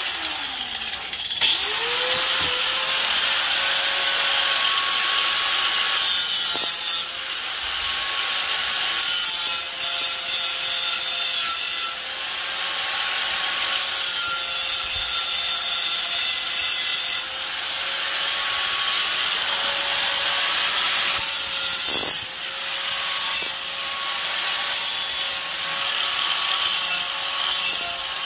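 Power grinder spinning up in the first two seconds, then running with a steady whine while it grinds into the steel truck frame. A harsh rasping rides over the whine, swelling and letting up briefly several times as the disc bites and lifts off.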